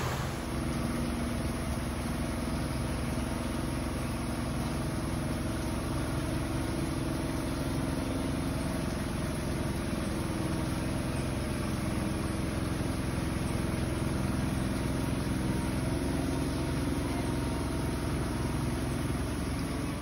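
Steady rain falling on foliage, with a low steady hum underneath.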